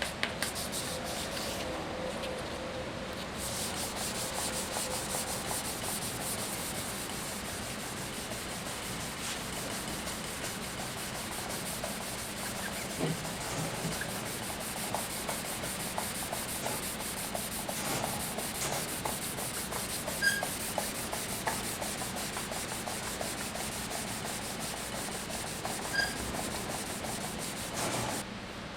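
Fine-grit wet sanding of a drum shell's finish: a steady rubbing hiss of the last, 800-grit paper on the surface before buffing, with a couple of faint clicks.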